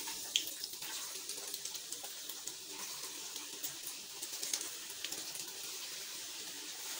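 Breaded chicken fingers frying in shallow hot oil in a pan: a steady sizzling hiss with scattered small crackles.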